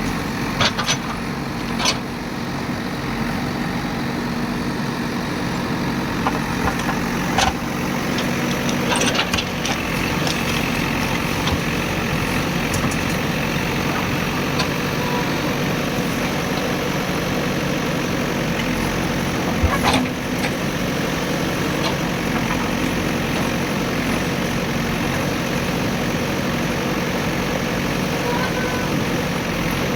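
Diesel engine of a JCB machine running steadily, with a few sharp knocks and cracks, the loudest about twenty seconds in.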